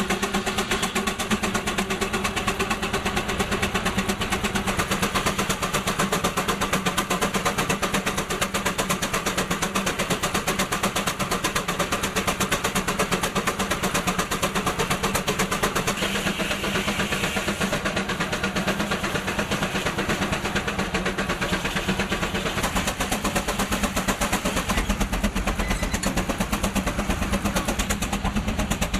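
Steam traction engine running steadily, its exhaust beating in a fast, even rhythm over a steady low hum.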